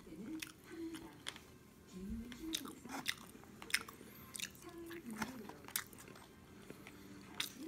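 A person chewing McDonald's French fries close to the microphone, with irregular mouth clicks and smacks about one or two a second.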